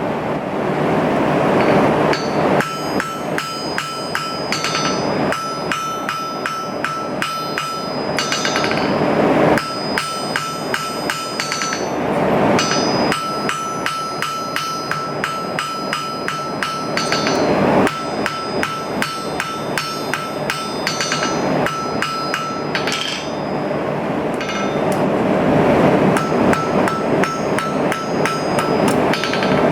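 Hammer beating stainless steel on an anvil in long runs of rapid blows, several a second, each with a clear metallic ring. A few short pauses between runs are filled by a steady rushing noise.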